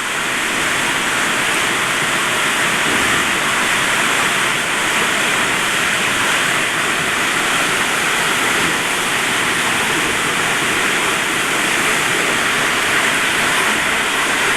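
Waterfall: the steady, loud rush of falling water.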